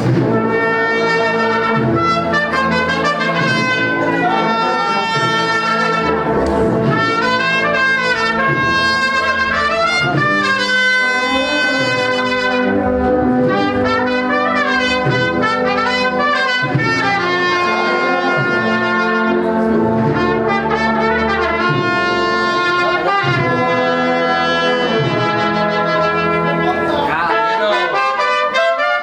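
Agrupación musical, a Spanish procession band of trumpets, trombones and other brass, playing a processional march with a trumpet melody over a low brass bass line.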